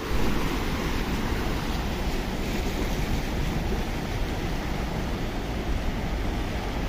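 Floodwater rushing and washing across a flooded street in a steady, unbroken noise, with a deep rumble of wind on the microphone.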